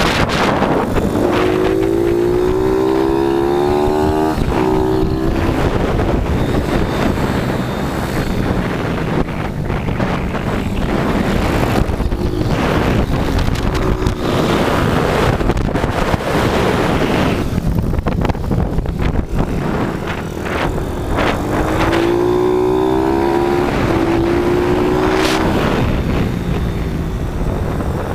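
YCF SP2 160 pit bike's single-cylinder engine running hard on the throttle, heard from on board over heavy wind rush on the microphone. The engine note climbs twice under acceleration, about a second in and again around twenty seconds in.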